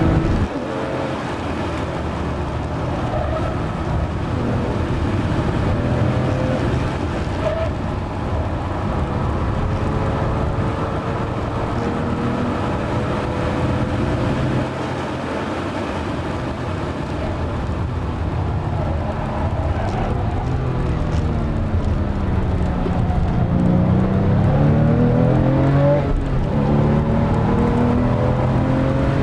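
Porsche 997 Carrera S's flat-six engine heard from inside the cabin at speed, under heavy wind and tyre noise. The engine note climbs slowly through a long pull, then a little past twenty seconds it falls and rises again in quick steps as the car slows and accelerates.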